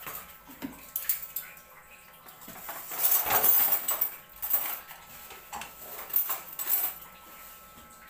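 Styrofoam packing and a cardboard refrigerator carton being handled during unpacking: scraping, rustling and scattered knocks, loudest about three seconds in.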